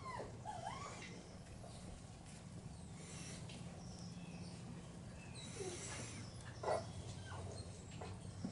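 Puppies giving a few short whines and yips, one right at the start and a couple about six to seven seconds in, over faint birdsong and a steady low hum.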